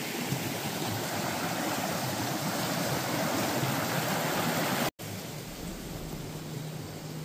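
Steady rushing of a mountain river's water. It breaks off for an instant about five seconds in and comes back quieter, with a faint low steady hum added.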